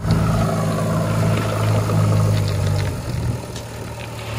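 Diesel engine of a JCB 3DX backhoe loader running steadily as it lifts a loaded bucket of small stone; its note drops and softens about three seconds in.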